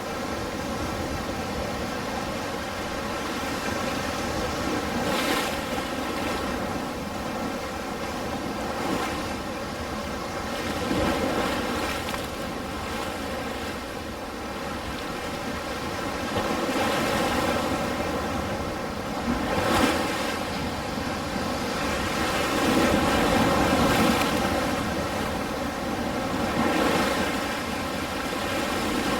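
Ocean surf washing in continuously, the waves swelling and easing every few seconds.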